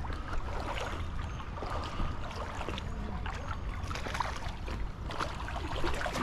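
Steady low wind rumble on the microphone, with scattered light clicks and rustles from a spinning rod and reel being handled.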